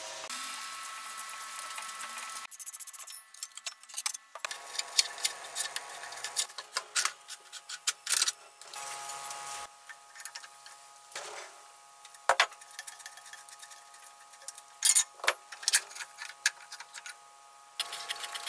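Hand tools clicking and clinking against the metal parts of an old Hitachi groove cutter as it is taken apart: a wrench working a nut, with scattered sharp metal knocks. The sound comes in several short cut-together stretches over a faint steady hum.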